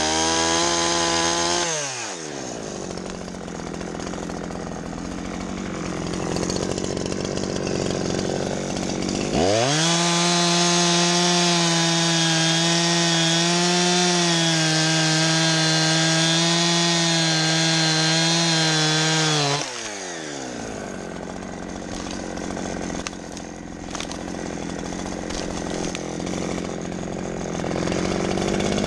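Two-stroke chainsaw at full throttle cutting wood. It drops back to idle about two seconds in, runs flat out again for about ten seconds through a cut, idles once more, and revs up near the end.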